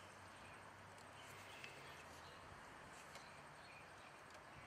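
Near silence: faint outdoor background with a low steady hum and a few faint high chirps.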